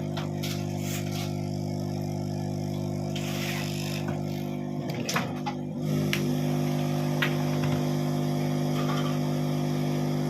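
Steady electrical hum with several overtones, broken by a few light clicks. About five seconds in it wavers briefly, then settles slightly louder.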